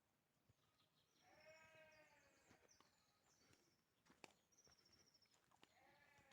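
Faint bleating of a farm animal: one long bleat about a second in and another beginning near the end, with small birds chirping high over it and a few sharp clicks.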